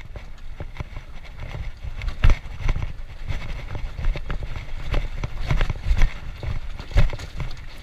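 Minsk motorcycle ridden over a rocky dirt track: a low rumble with uneven knocks and rattles as the wheels jolt over stones.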